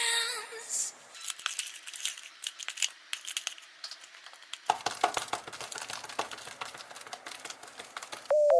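Slime being squeezed and stretched by hand, making a quick, irregular run of small sticky clicks and crackles that grows louder about halfway through.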